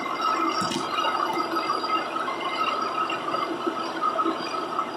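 Ridgid shop vacuum running through a Dust Deputy cyclone dust separator: a steady airy rush with a wavering whine.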